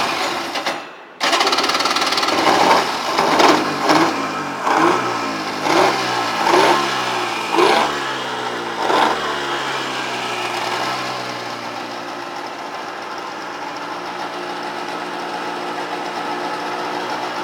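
The 1996 Polaris SL 900 jet ski's three-cylinder two-stroke engine is cranked and catches about a second in, is revved in about eight quick blips, then settles to a steady idle. The seller says a couple of its cylinders have lower compression than the other.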